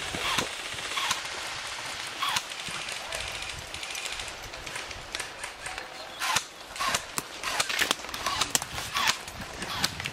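Airsoft guns firing: irregular sharp shots and short strings of shots, coming more often from about six seconds in.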